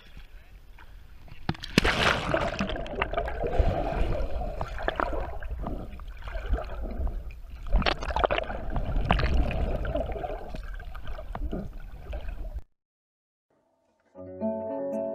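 Camera plunged into a shallow, fast river: a sudden splash about two seconds in, then the muffled gurgling, sloshing and clicking of water against the camera housing under the surface, over the current's low rumble. It cuts off abruptly near the end, and after a second and a half of silence acoustic guitar music begins.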